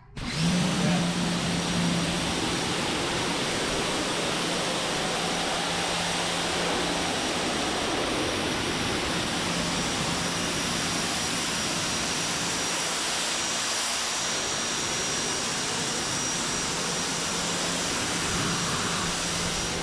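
RYOBI 1800 PSI electric pressure washer running continuously, its motor pump humming steadily under the hiss of the high-pressure water jet spraying a concrete garage floor. It starts abruptly at the beginning.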